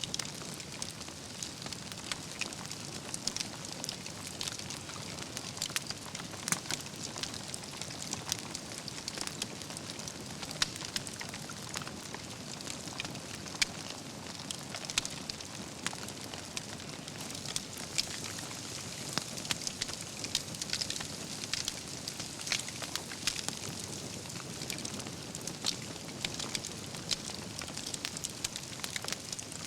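Wood fire of burning logs crackling, with a steady hiss under frequent irregular pops and cracks.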